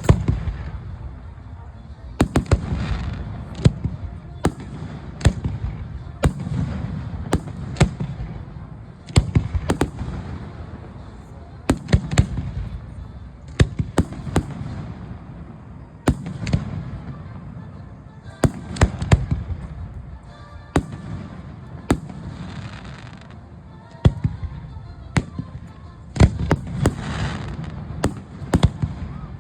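Aerial fireworks bursting one after another: many sharp bangs, sometimes several in a second, over a continuous low rumble of echoing booms.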